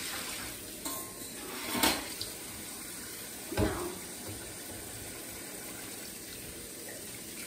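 Kitchen tap running steadily into the sink as dishes are washed, with three sharp knocks and clinks of dishes in the first four seconds, the loudest a little under two seconds in.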